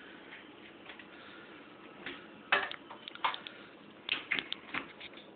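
Clicks and knocks of things being handled on a kitchen counter: a sharp knock about halfway through, a couple more a moment later, then a quick run of small clicks near the end.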